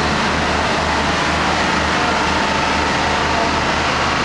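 Diesel railcar standing with its engine idling: a steady drone with a low throb pulsing a few times a second, under an even hiss.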